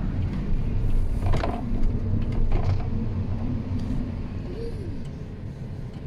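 Car engine and road noise heard from inside the cabin while driving: a steady low rumble that grows quieter toward the end.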